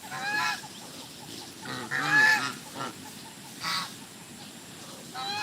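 Farm poultry calling: several short, separate calls spaced through a few seconds.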